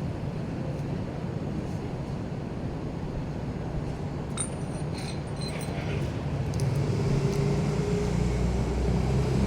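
Steady vehicle engine rumble with a few light metallic clinks about halfway through; an engine hum grows louder in the last few seconds.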